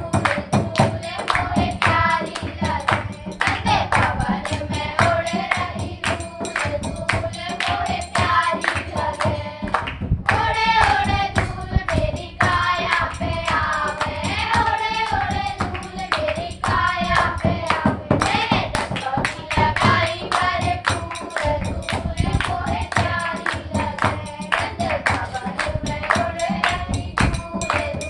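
Devotional group chanting (kirtan), a lead voice and a chorus singing a repeating melody over a steady percussion beat, with a brief break about ten seconds in.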